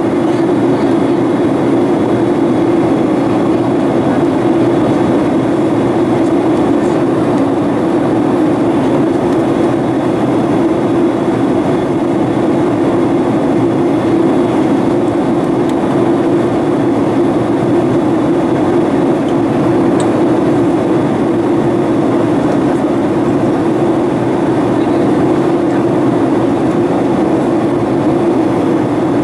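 Steady cabin drone of a Boeing 737-800 in flight, its CFM56-7B turbofan engines and the airflow past the fuselage making a constant low hum, heard from a window seat during the descent.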